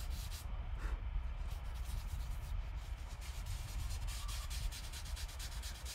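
Tissue rubbed back and forth over charcoal on drawing paper to blend the shading into an even layer: a soft, continuous rubbing made of many fine, quick scratchy strokes.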